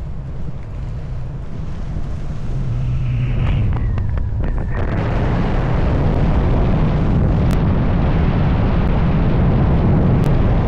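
Wind rushing past and buffeting a body-mounted camera's microphone during a parachute canopy flight, growing louder about five seconds in.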